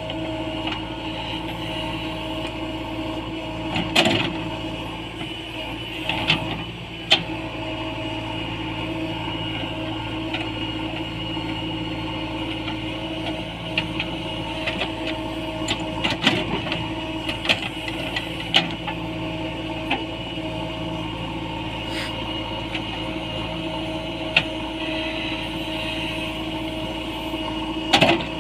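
JCB 3DX backhoe loader's diesel engine running steadily under digging work, with several sharp knocks scattered through it.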